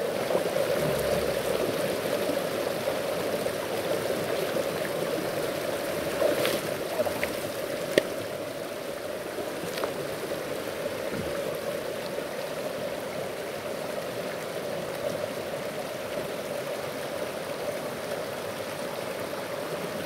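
Clear, shallow mountain stream running over rocks and a low rock ledge: a steady rushing of water, a little louder for the first several seconds. There is a sharp click about eight seconds in.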